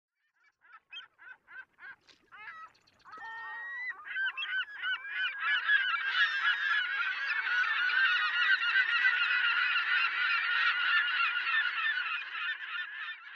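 A flock of birds calling: a few separate calls at first, then more and more overlapping calls building into a dense, continuous chorus of squawking.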